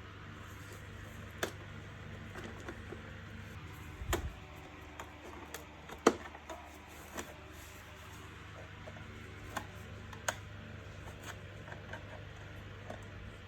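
Irregular clicks and light knocks of the hard plastic parts of an Electrolux UltraOne vacuum cleaner being handled, over a steady low hum; a dull thump about four seconds in and the sharpest knock about six seconds in.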